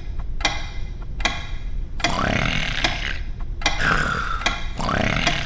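Cartoon intro: sharp pitched beats about every 0.8 seconds, then, from about two seconds in, three comic wordless vocal noises from a cartoon character, each about a second long.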